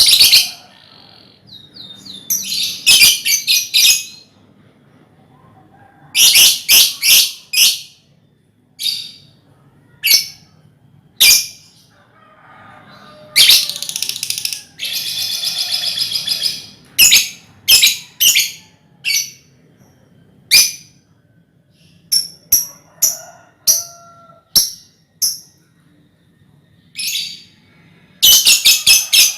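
A colony of lovebirds calling: bursts of shrill, high chirps and short trills. About halfway through comes one longer run of continuous chattering.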